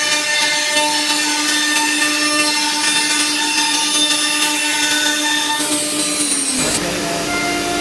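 ELECNC1530 ATC CNC router spindle running at speed and cutting, a steady high whine over a rough cutting noise. About six and a half seconds in, the whine drops in pitch and the sound changes abruptly.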